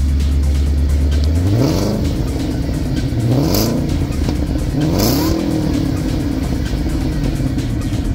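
A 2009 Ford Mustang GT California Special's 4.6-litre V8 idles through its exhaust, then is revved three times in quick succession. Each rev rises and falls back before the engine settles to idle again.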